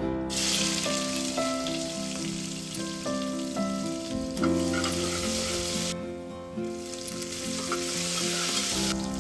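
Food sizzling as it fries in a pan. The sizzle starts just after the opening, drops away briefly about six seconds in, then comes back. Soft background music with plucked notes plays underneath.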